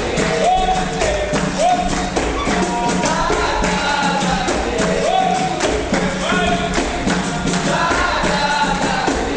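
Capoeira music: a sung melody over rhythmic percussion, with a pandeiro (tambourine) among the instruments.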